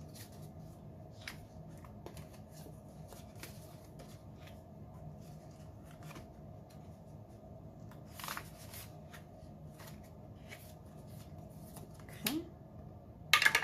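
Scratching off a printed scratch-off game card by hand: a run of short, irregular scrapes against the card on a table, with a louder burst of scraping about eight seconds in and again near the end.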